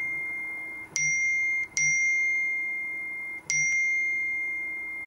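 iPhone message notification chime: a single bell-like ding at the same high pitch, sounding three times (about one, two and three and a half seconds in), each ringing on and slowly fading.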